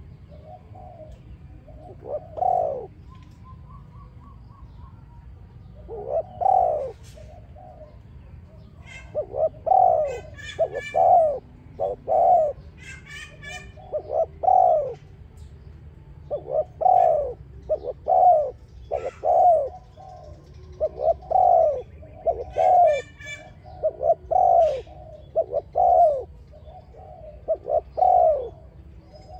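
Spotted dove cooing: short phrases of low, soft notes repeated every few seconds, several close together in places. Brief bursts of high, quick chirping from small birds come in between.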